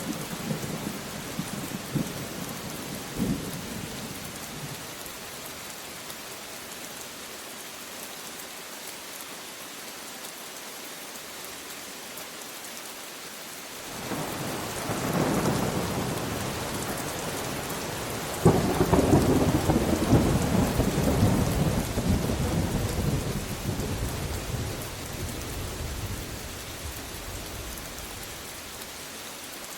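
Steady rain falling, with rolling thunder: a rumble builds about halfway through, then a sharper clap follows a few seconds later and rumbles on for several seconds before dying away.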